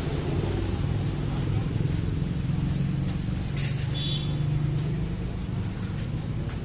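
A steady low background rumble, with a few faint clicks about three and a half seconds in.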